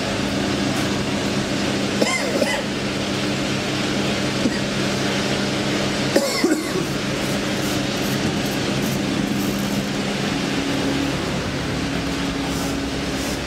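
Steady mechanical hum with several low tones, broken by a few knocks and clunks about two seconds in and again about six seconds in.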